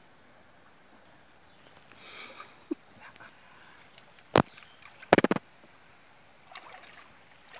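Steady high-pitched insect hiss that cuts off abruptly about three seconds in. Then comes a single sharp knock, followed a second later by a quick rattle of four or five knocks.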